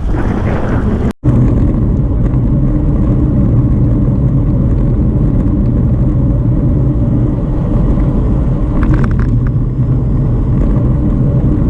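Steady low rumble of wind on the microphone and tyre noise from a bicycle riding a damp road, with a brief dropout about a second in.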